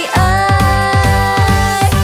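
Pop song: a singer holds one long note over a steady electronic beat.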